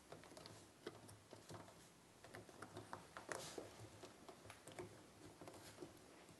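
Faint scattered small taps and rubbing of hands working a washing machine's rubber door seal back into place around the door opening.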